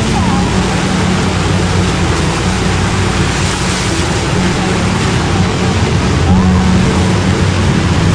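Motorboat engine running under a loud, steady rush of water and wind noise, with voices faintly mixed in.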